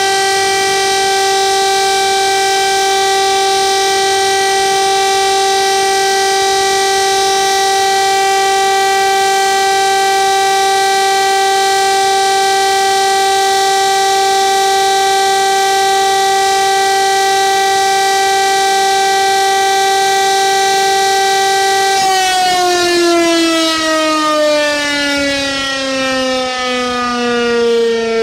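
Electric rotary civil-defence siren holding a steady all-clear (Entwarnung) tone. About 22 seconds in it is switched off and its pitch slides steadily down as the rotor spins down.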